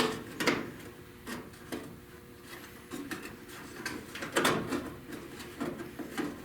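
Irregular knocks, clicks and scrapes of a sheet-metal repair piece being handled, loudest right at the start and again a little past four seconds in.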